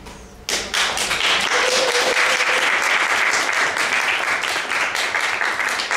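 Audience applauding: a dense round of clapping that starts suddenly about half a second in and keeps up steadily.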